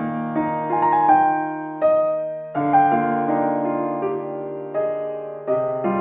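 Background music: a soft piano melody with sustained chords, new notes struck about every second or two.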